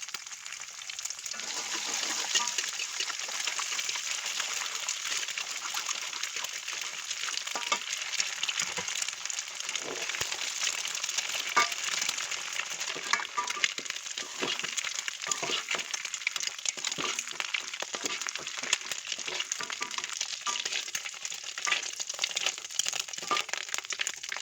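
Scrambled eggs sizzling steadily in hot oil in a frying pan, with frequent short clicks and scrapes as they are stirred and broken up with a spatula.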